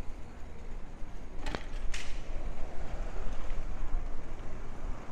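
Steady street noise heard from a bicycle ride through city streets, with a low rumble underneath. Two sharp clicks sound about a second and a half and two seconds in.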